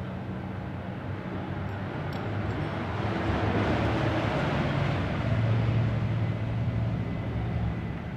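An engine running steadily, with a swell of noise that builds and fades over the middle few seconds.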